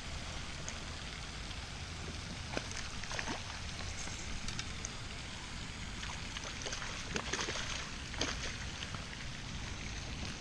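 A small hooked fish being reeled to the bank and landed: scattered sharp clicks and short splashes over a steady water-like hiss, the loudest a few seconds before the end.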